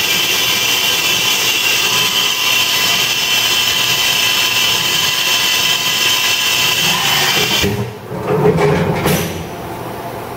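Fadal 3016 vertical machining center running with a steady high whine, which most likely comes from its spindle turning at speed. It cuts off sharply about three quarters of the way in. A brief, louder, lower rumble follows, then the machine's quieter steady hum.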